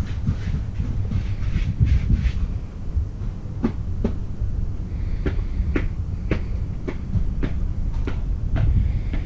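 Wind buffeting the microphone in a steady low rumble. Through the second half comes a run of about nine sharp, evenly spaced ticks, roughly two a second: the footsteps of the person carrying the camera as they walk around the enclosure.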